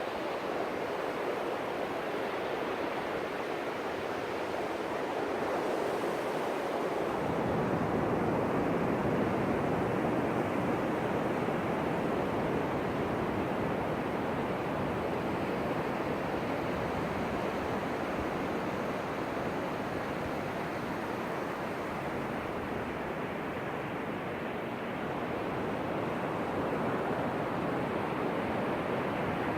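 Ocean surf: waves breaking and washing up the beach in a continuous rush, swelling a little louder about a quarter of the way in.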